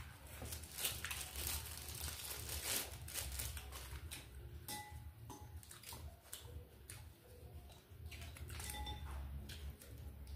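Close-up eating sounds: leaf wrappers rustling and tearing as they are peeled off nem chua (fermented pork rolls), with many short clicks and taps of chopsticks on bowls and chewing.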